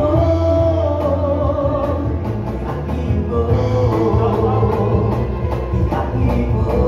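Male vocalist singing live into a microphone, holding long notes that glide in pitch, over a small acoustic band: a bass guitar with a strong, steady bass line, guitar, and box-drum (cajon) percussion.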